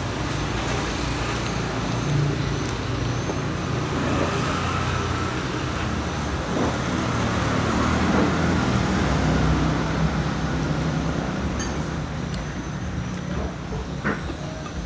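Steady road traffic noise with a low rumble, swelling as a vehicle passes about eight to ten seconds in. A few light clicks come near the end.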